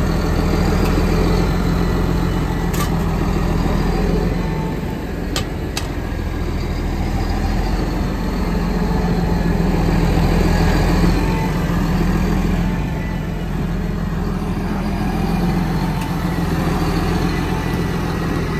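Tractor diesel engine running steadily close by as the tractor rolls slowly over fresh crushed rotten rock, compacting it, with a few sharp clicks of stones under the tyre about three and five and a half seconds in.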